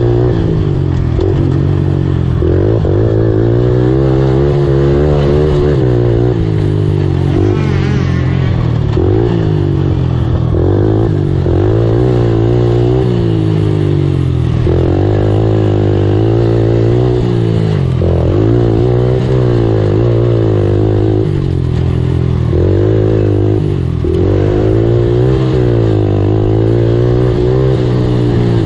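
Racing ATV engine running hard, its revs rising and falling over and over as the quad accelerates and backs off along the trail. Loud and unbroken.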